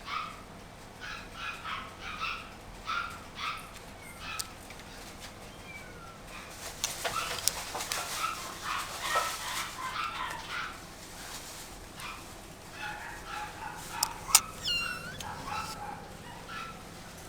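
Puppy yipping and whining in short, high-pitched calls, about two a second, with a denser noisy stretch in the middle. A sharp click comes about 14 seconds in, followed by a falling squeal.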